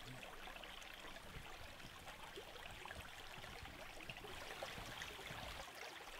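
Faint, steady gurgling of a shallow forest brook running over stones.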